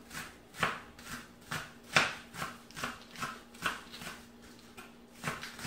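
Kitchen knife chopping green onions on a cutting board: a steady run of short knocks, about three cuts a second.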